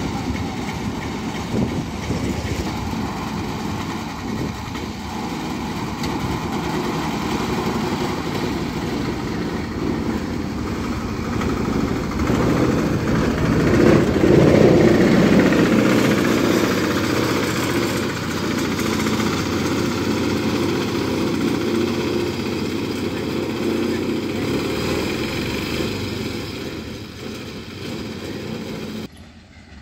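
Piaggio Ape Xtra LD three-wheeler's small single-cylinder engine running steadily. It grows louder about halfway through as the loaded vehicle is close by, then eases off as it drives away, and the sound cuts off abruptly near the end.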